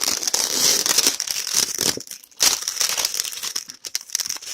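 Packaging being handled and unwrapped by hand close to the microphone: loud crinkling and rustling, with short pauses about two seconds in and near the end.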